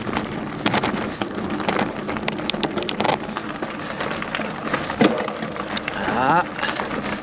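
Loaded bicycle rolling over a rough surface, with irregular crackling and sharp clicks from the tyres and rattling bike.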